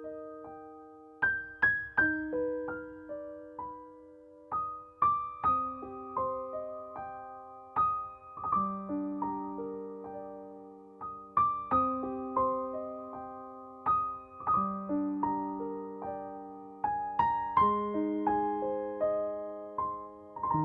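Background music: a gentle solo piano melody, single notes and soft chords struck one after another and left to ring and fade.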